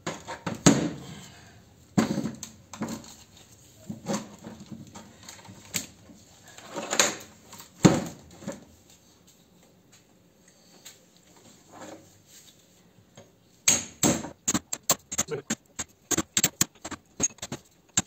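Heavy steel motor stator clunking and knocking as it is shifted and set down on a steel block. Near the end comes a quick run of sharp metallic taps, several a second: a hammer striking a punch to drive the burnt copper winding out of the stator slots.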